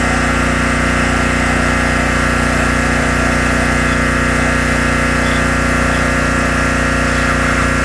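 Pressure washer running steadily while spraying a dirt bike: a constant motor drone under a hiss of water jet.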